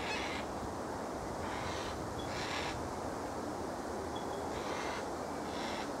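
Yellow-tailed black cockatoo giving about five short, harsh calls in two groups, over a steady low rushing background.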